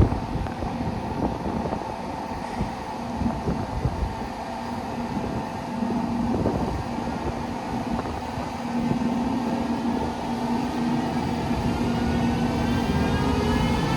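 Electric train running at the station: a steady rumble and hum, with a whine that rises in pitch near the end as the train speeds up.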